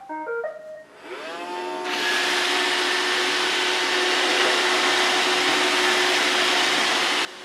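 Roomba robot vacuum playing a short tune of beeps as it starts, then its vacuum motor spinning up with a rising whine and running steadily. The sound cuts off suddenly near the end.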